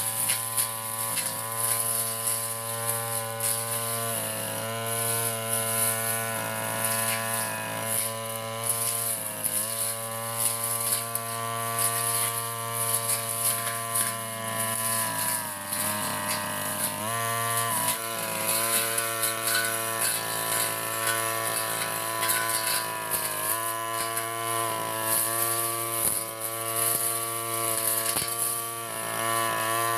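Backpack petrol brush cutter engine running at high revs while cutting grass. Its pitch dips briefly three times: about a third of the way in, around the middle, and about three-quarters of the way through.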